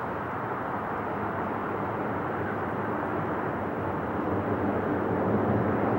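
Jet engines of a four-engine Boeing 747-400 climbing out just after takeoff: a steady, deep rushing rumble that grows gradually louder as the jumbo jet comes overhead.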